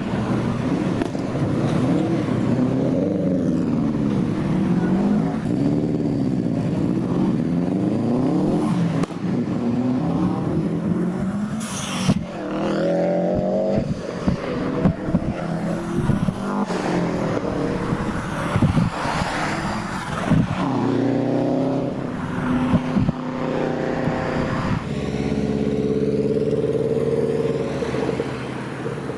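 Subaru Impreza flat-four engines revving and accelerating as the cars pull away, the engine note rising and falling again and again. There is a single sharp click near the middle.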